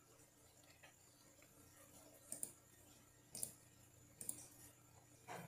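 A few faint computer mouse clicks about a second apart over near silence and a low steady hum.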